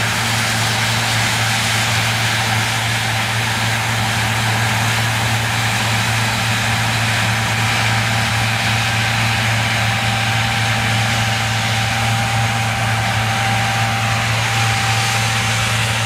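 John Deere combine harvester and a tractor running together at work: a steady, unbroken machinery drone with a thin steady whine over it.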